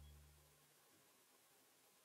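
The last low, held notes of background music fading out within the first second, then near silence.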